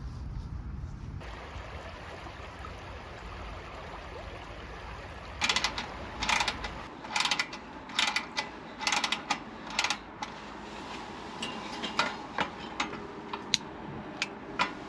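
Sharp mechanical clicking and rattling, in a dense run from about five to ten seconds in, then a few scattered single clicks.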